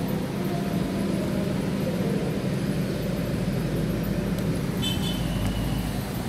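Steady low-pitched rumbling background noise, with a brief faint high beep about five seconds in.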